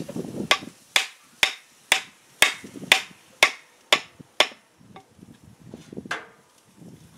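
A mallet striking the end of a hickory handle about nine times, roughly two sharp blows a second, tapping an antique adze head tight onto its mattock-style tapered handle fit.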